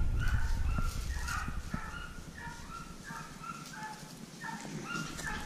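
Hog dogs barking in a quick, steady series of about three barks a second: the dogs baying a wild hog in the brush.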